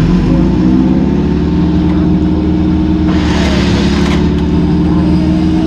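Off-road 4x4's engine running steadily under load as it crawls up a narrow, muddy track. About three seconds in, a rush of hissing noise lasts roughly a second over the engine.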